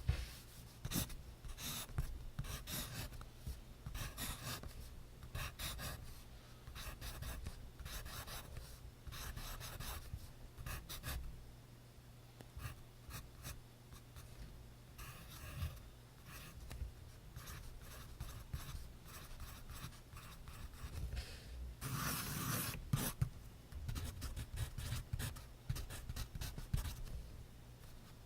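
Pencil writing on notebook paper: quick scratching strokes in irregular bursts, with one louder paper rustle lasting about a second late on.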